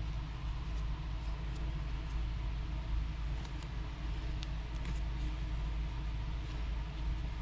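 Steady low background rumble with a few faint, light clicks in the middle.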